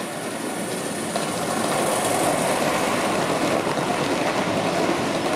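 Gauge 1 model train of a steam-outline locomotive and red and cream coaches running on the track, its wheels rumbling and clattering on the rails. It grows louder about a second in as the coaches pass close by.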